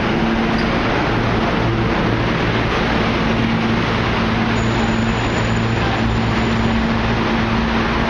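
Steady city street noise: traffic din with a constant low machine hum running under it. A faint high whistle sounds for about two seconds in the middle.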